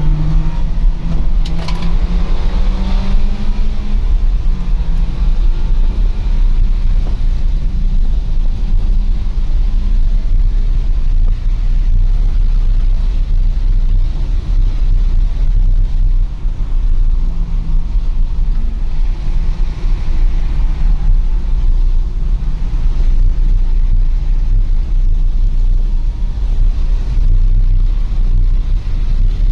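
Inside a BMW driven hard at speed: a continuous heavy low rumble of road and wind noise. The engine note rises in pitch over the first few seconds under acceleration.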